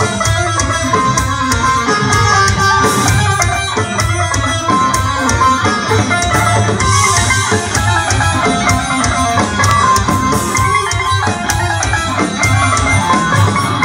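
Live band playing at full volume: electric guitar and bass guitar over a drum kit, with frequent cymbal hits.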